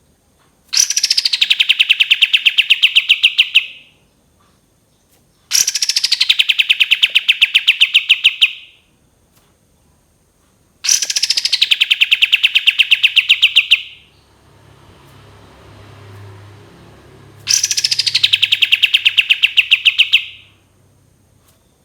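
Kapas tembak bulbul singing its long trilled 'tembakan' phrase four times. Each phrase opens with a falling note and runs into a rapid, even trill of about ten notes a second, lasting about three seconds.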